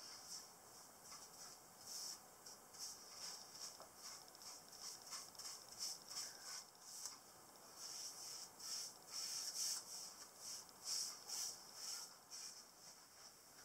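Faint, quick swishes of a small paintbrush stroking finishing oil onto planed pine timber, about two strokes a second.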